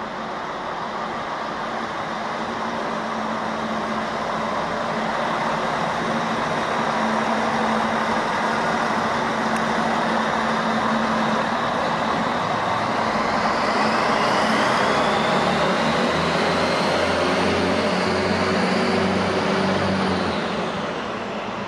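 ODEG Stadler Regio-Shuttle diesel railcar running past on the station track. Its engine note grows louder as it nears, and a rising whine from the engine and transmission comes in about halfway through as it picks up speed. The sound fades quickly near the end.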